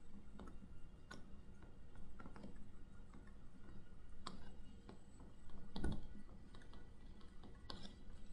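Stylus tapping on a touchscreen during handwriting: a run of faint, irregular clicks, with one louder knock about two-thirds of the way in.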